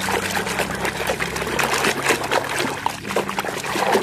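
Water pouring and splashing over a muddy toy vehicle as it is washed. It starts suddenly and runs on unevenly.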